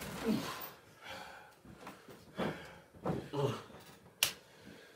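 A wrestler's short groans and heavy breaths, several falling in pitch, with one sharp click or slap about four seconds in.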